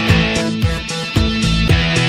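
Background rock music: guitar over a steady drum beat.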